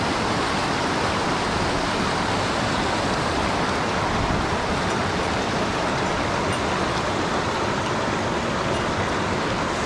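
Shallow mountain stream rushing steadily over rocks, a continuous even rush of water close by.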